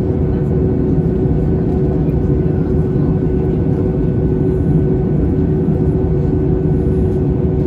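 Airbus A320 cabin noise in flight, heard from inside the cabin: a steady drone of engines and rushing air with a constant hum on top.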